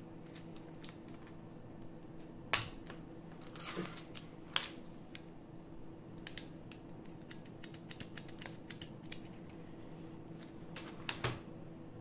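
Scattered light plastic-and-metal clicks and knocks as a mechanical key switch is pushed into a keyboard's steel plate and the circuit board is handled. The sharpest click comes about two and a half seconds in, with a few more near the middle and near the end. A faint steady hum runs underneath.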